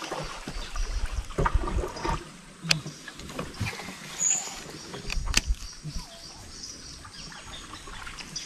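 Handling noise and knocks in a small boat as a baitcasting rod is cast and worked, with muffled thumps and two sharp clicks.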